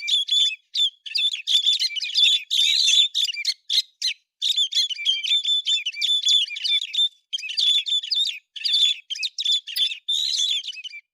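A songbird, the bird called 'héc xoan' in Vietnamese, singing a fast, varied string of chirps and whistles with only brief pauses between phrases.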